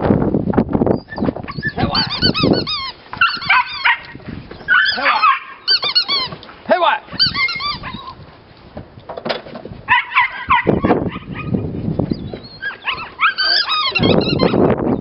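Young Belgian Malinois yelping and whining in excitement, in repeated groups of short high squeaky yips that rise and fall in pitch. A low rumbling noise comes at the start and again near the end.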